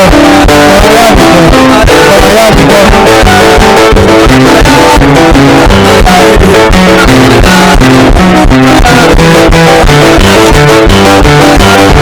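Loud music with guitar over a steady beat.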